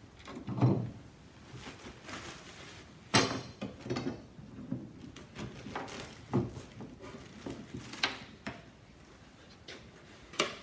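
Bar clamps being loosened and taken off a glued-up hardwood board on a wooden workbench: a string of irregular knocks, clunks and clatters as the clamps and board are handled and set down, the loudest about three seconds in.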